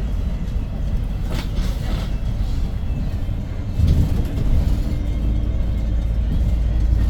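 A Hyundai New Super Aerocity city bus's 290 hp CNG engine running, heard from inside the cabin. There is a sharp knock a little over a second in. About four seconds in the sound swells, then settles into a steadier, higher engine note.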